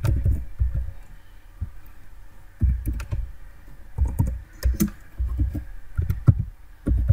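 Computer keyboard being typed on: sharp key clicks with a low thud to each stroke, in short uneven runs with pauses between them.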